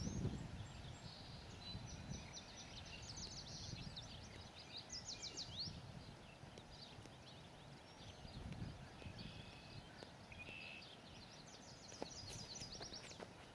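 Quiet rural outdoor ambience: small birds chirping and trilling, over a low rumble. Near the end, a few sharp footfalls as a person runs.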